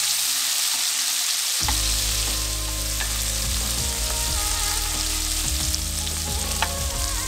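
Scallops searing in melted butter in a frying pan, with a steady hiss of sizzling fat. A few light clicks sound from about three seconds in.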